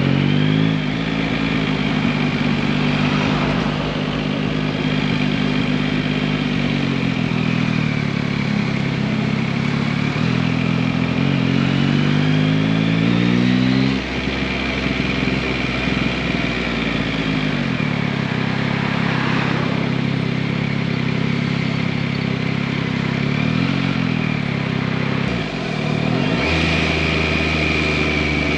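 Yamaha MT-09 (2021, RN69) three-cylinder engine under way, its pitch rising through several accelerations and dropping back between them, over a steady rush of wind.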